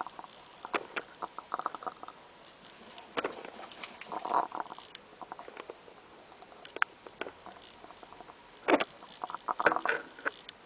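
Hen making a snore-like rattle in short bursts every few seconds, with a few sharp clicks in between.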